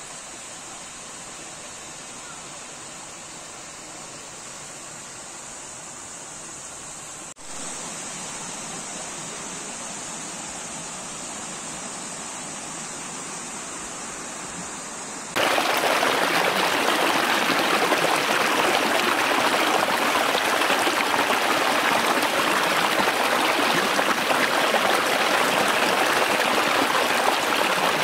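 Forest stream water rushing and splashing over rocks and small cascades, a steady rush. A little past halfway it turns suddenly much louder and fuller.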